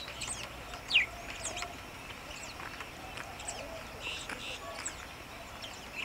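Several birds chirping and whistling in short, quick calls, some sliding steeply in pitch, with one louder whistle falling in pitch about a second in.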